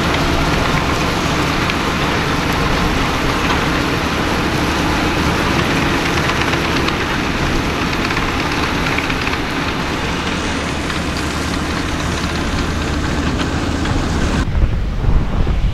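John Deere 7R 330 tractor's six-cylinder diesel running steadily under load in the field, a constant engine drone under a broad rushing hiss. Near the end the hiss cuts off suddenly and low wind buffeting on the microphone takes over.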